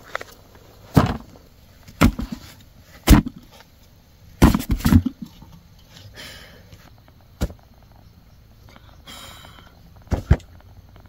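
Boiled ears of corn in their husks being dropped into a bucket: a series of short dull knocks, about one a second at first, a quick cluster of several about halfway through, and two more near the end, with husks rustling in between.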